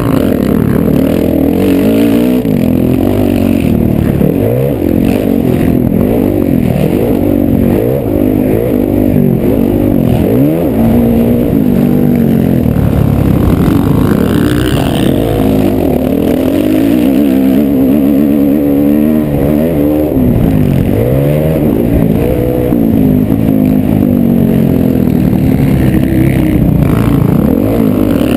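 Motocross bike engine heard up close from the rider's helmet, revving up and dropping back over and over as it is ridden hard around a dirt track, the pitch rising and falling with each shift and corner.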